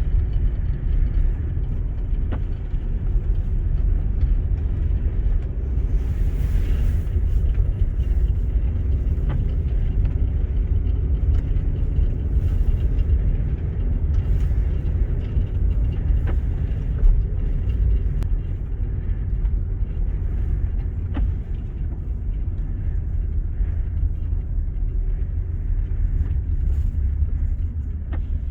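Steady low rumble of a car driving on snow-covered streets, heard from inside the cabin: engine and studded tyres running at an even speed.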